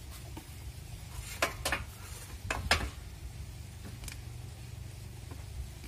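A handful of sharp plastic clicks and knocks as a PVC pipe is handled and fitted against the installation's pipework, two pairs in the first three seconds and one more a little after four seconds, over a steady low hum.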